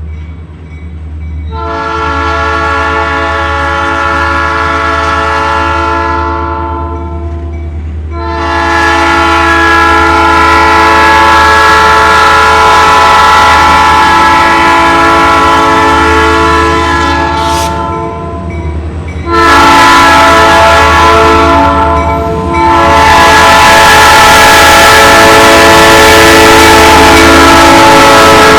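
Diesel locomotive air horn sounding four long blasts: one of about five seconds, a long one of about nine seconds, a short one of about three seconds, and a last one that starts near the end and is still sounding. A steady low rumble runs underneath.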